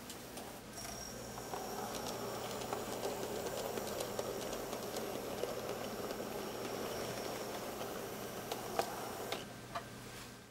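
N-scale model train, a Minitrix Köf shunter with four silo wagons, running past: a light continuous rattle and clicking of small wheels on the track. It grows louder as the train comes close and falls away near the end, with a few sharper clicks.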